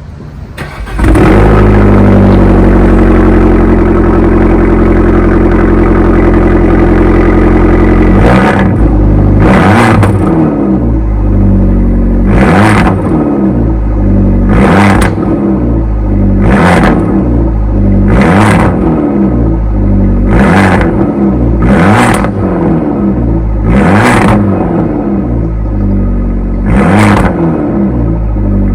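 Abarth 595 Pista's turbocharged 1.4-litre four-cylinder, breathing through a Record Monza exhaust. It starts up about a second in and settles into a steady idle. From about eight seconds in it is revved in short blips, about ten of them, every two seconds or so, each rising and falling quickly.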